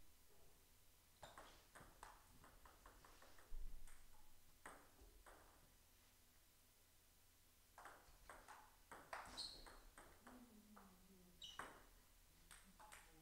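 Table tennis ball clicking off the rackets and the table in a rally, in short irregular runs of sharp ticks with gaps between points. A dull thump comes about three and a half seconds in, and a brief high squeak about nine seconds in.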